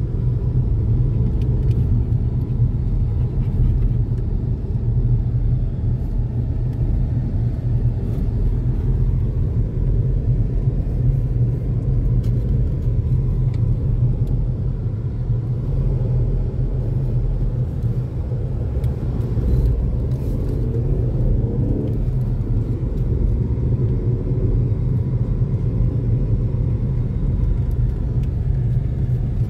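Steady low rumble of a car's engine and tyres heard from inside the cabin while driving up a narrow mountain road.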